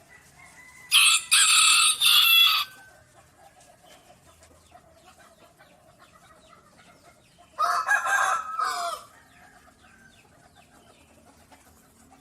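Rooster crowing twice: a loud cock-a-doodle-doo about a second in, and another about eight seconds in.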